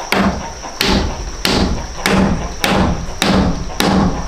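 Hammer blows on a nail in a wooden frame: about seven even strikes, one roughly every 0.6 seconds, each a sharp knock with a dull thud.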